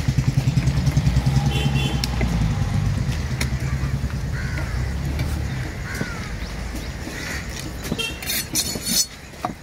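A motor vehicle engine idling with a steady low pulsing that fades away after about five seconds. A short rattling clatter comes near the end.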